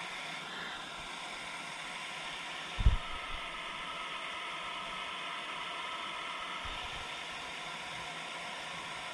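Water pouring over a low concrete weir: a steady rushing. A single dull low thump about three seconds in.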